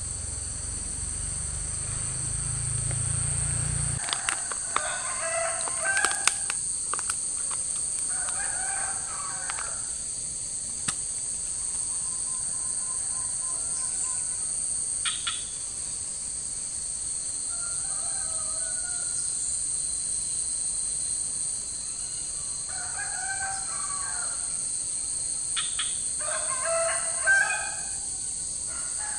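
Roosters crowing several times, each crow lasting a second or two, over a steady high-pitched drone of insects. A low rumble runs through the first few seconds and then stops.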